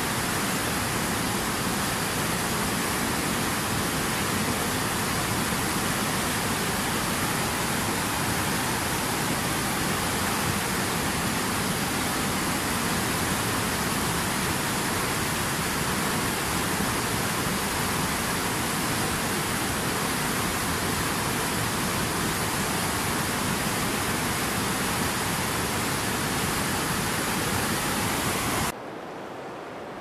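Whitewater mountain river rushing over rocks: a steady, dense rush of water. About a second before the end it cuts off abruptly to a quieter, softer water sound.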